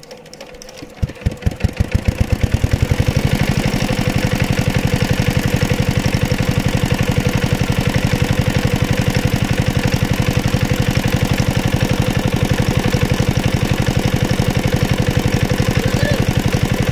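Engine of a pond dewatering pump starting about a second in, its strokes quickening over the next two seconds, then running steadily.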